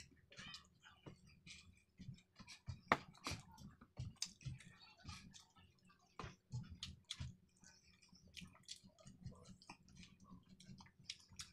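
A person chewing and smacking their lips while eating rice and dried fish by hand: faint, irregular wet clicks and smacks, the sharpest about three seconds in.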